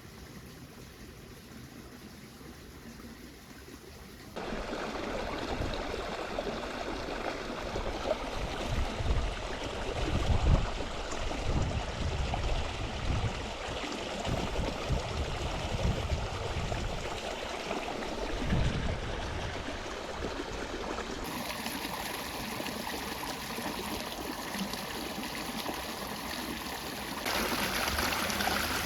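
Water running and trickling steadily where an inflow spills into a reservoir pond. It gets suddenly louder about four seconds in and shifts twice more later, with low rumbles now and then through the middle.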